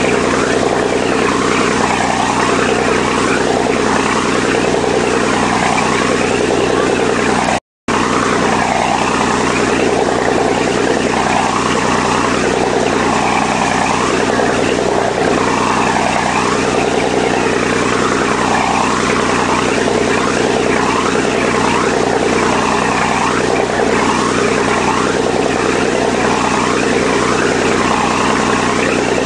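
Boat engine running steadily under the rush of churned water in the wake, with a swishing sweep every second or two. The sound cuts out for a split second about eight seconds in.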